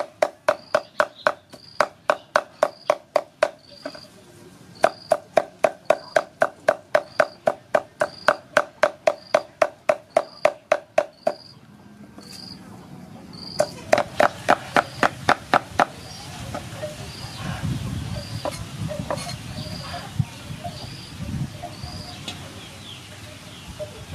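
Knife chopping quickly on a cutting board, about four strokes a second, in a long run that stops about eleven seconds in, picks up briefly again, then gives way to quieter knocks and handling sounds. A cricket chirps steadily, about twice a second, behind it.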